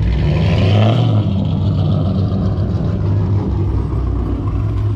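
Dodge Charger's engine and exhaust rumbling deep and steady as the car pulls slowly away at low speed.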